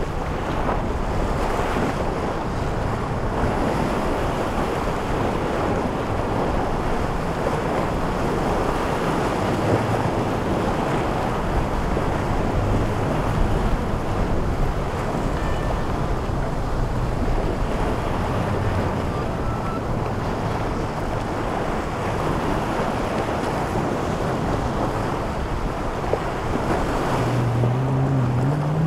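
Wind buffeting the microphone over the steady wash of surf and waves in an inlet, with the faint drone of boat engines. Near the end a boat's engines come up louder and rise in pitch.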